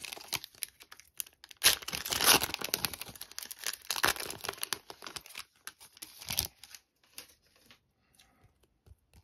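Foil wrapper of an O-Pee-Chee Platinum hockey card pack being torn open and crinkled, a run of rustling tears loudest in the first few seconds. After about six and a half seconds it dies away to faint light rustles as the cards are slid out.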